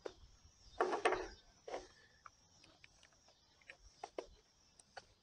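Small cardboard box being slit open with a folding knife and handled: a couple of short scraping rustles about a second in, then scattered light clicks and taps as the knife is put down on the wooden table and the box is worked open.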